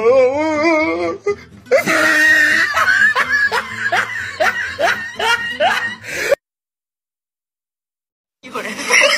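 A high voice giving laughter-like squeals, a wavering held note first and then a run of short rising squeals about two a second, over music. It cuts to dead silence about six seconds in, and sound returns near the end.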